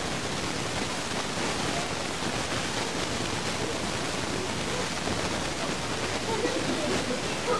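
Steady hiss of recording noise with no clear event in it. Faint voices murmur about six seconds in.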